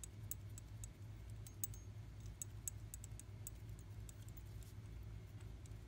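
Light, irregular metallic clicks and ticks of injector hold-down bolts being started by hand into a Cummins ISL diesel's injector cup, over a steady low hum.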